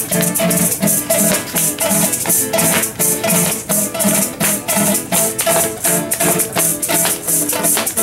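Instrumental llanero joropo played on strummed cuatros with maracas. The maracas shake in a fast, even rhythm over a repeating strummed chord pattern.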